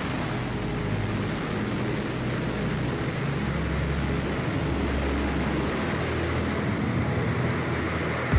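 New Shepard booster's BE-3 rocket engine firing on its landing burn: a steady rush of exhaust noise, with a deeper rumble in the middle few seconds as the booster settles onto the pad.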